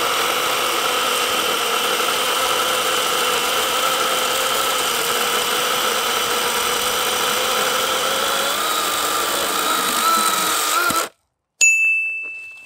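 Battery-powered DeWalt DCCS620 chainsaw, with an 18-inch bar and chain, running steadily under load as it saws through a thick log. Its pitch rises a little as the cut finishes, then the sound stops abruptly. Soon after, a short high ringing tone starts sharply and fades.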